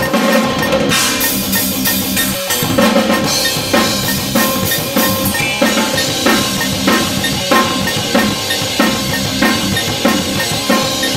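Acoustic drum kit played hard. Cymbals ring densely through the first half, then the playing settles into a steady, driving beat of accented strikes about every 0.6 seconds, with bass drum and snare throughout.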